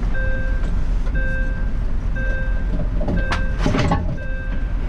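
Fire engine's engine running, heard inside the cab, with a short electronic warning beep repeating about once a second. A brief clatter comes about three and a half seconds in.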